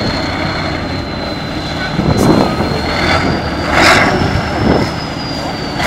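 Tatra 815 trial truck's diesel engine labouring under load as the truck climbs a steep muddy slope, with surges of revs about two, four and five seconds in and a thin high whine running over it.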